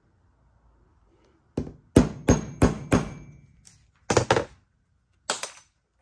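Hammer striking a large nail used as a punch on a cable lug resting on a bench vise's anvil, punch-crimping the lug onto the cable. Sharp metal-on-metal blows with a brief ring: one blow, a quick run of four, then two close pairs near the end.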